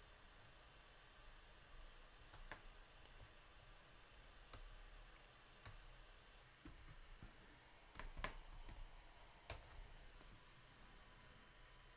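Near silence broken by a handful of faint, irregular clicks from a laptop keyboard being typed on.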